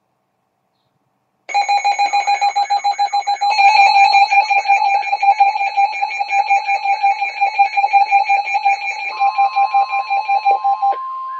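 Emergency alert alarm tones announcing a flash flood warning. After a silent start, a loud beeping of several high pitches together, pulsing about six times a second, begins about a second and a half in. Near the end a steady tone takes over as the pulsing stops.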